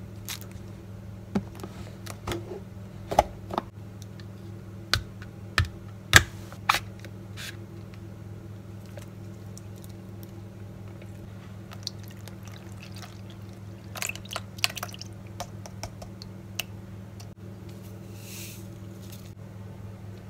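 A plastic drink cup and plastic food container handled with sharp clicks and knocks, while a store-bought tapioca milk tea is opened and poured into the container. A steady low hum runs underneath.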